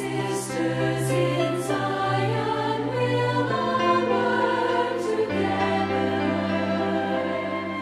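Background music: a choir singing over sustained chords, with a bass line that shifts to a new note about two thirds of the way through.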